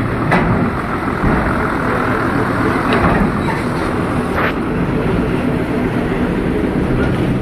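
Hino 1J coach's diesel engine running as the bus drives slowly off the ferry onto the steel ramp, with a steady low hum. Three short sharp knocks come through, about half a second in, at three seconds and at four and a half seconds, as the wheels cross the ramp plates.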